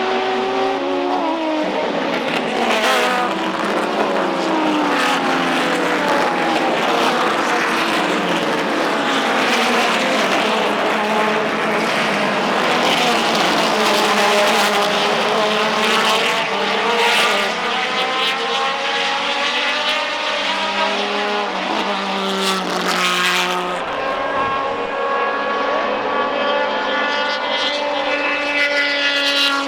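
Several Procar 4000 race cars with straight-six engines running hard on the circuit, their engine notes overlapping and rising and falling in pitch as they accelerate, shift and pass.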